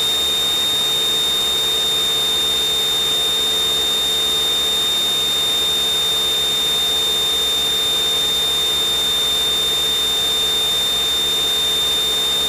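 A steady high-pitched electronic whine over an even hiss in the cockpit audio of a light single-engine plane in flight, unchanging throughout.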